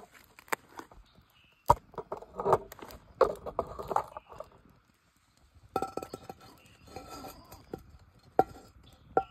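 Utensils clinking and knocking against cookware and dishes during cooking, in irregular clusters of sharp strikes with a pause just before the middle; some strikes ring briefly.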